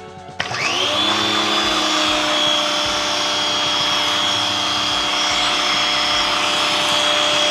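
Giraffe Tools Grandfalls wall-mounted pressure washer's electric motor and pump coming on about half a second in as the trigger is pulled, winding up quickly to a steady whine. The hiss of the soap spray from the foam bottle attachment, on its minimum setting, runs along with it.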